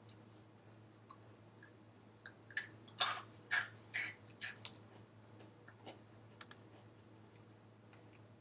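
Sharp crackling and clicking of a snack bag of french fry crisps being handled, in a cluster of about eight crackles from about two seconds in to about four and a half seconds in.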